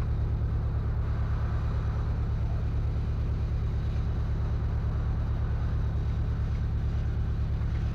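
An engine idling steadily with an even low throb that does not change.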